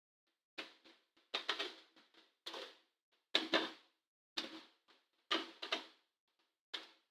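Irregular sharp clicks and knocks, about one a second, from a laptop's plastic case and parts being handled and taken apart.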